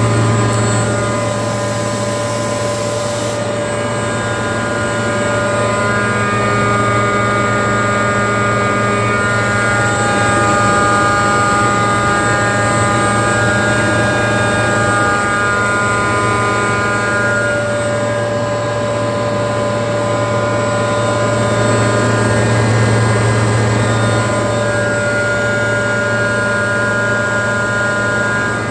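Airking rotary screw air compressor running steadily: a constant low hum with several steady whining tones over it, and a brief hiss in the first few seconds.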